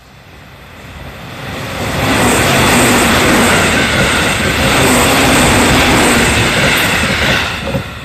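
JR Central 311 series electric multiple unit passing close at speed: the noise of its wheels on the rails builds over the first two seconds, holds loud and steady as the cars go by, then drops away sharply near the end.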